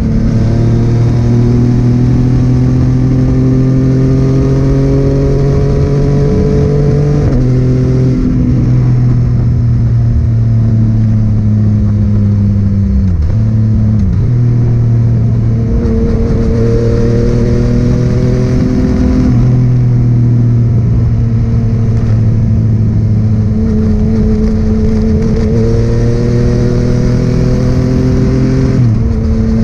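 Yamaha MT-09's three-cylinder engine through a Scorpion full exhaust system, pulling steadily on the open road. Its pitch climbs slowly and drops back a few times at shifts or throttle lifts, over steady wind and road rush.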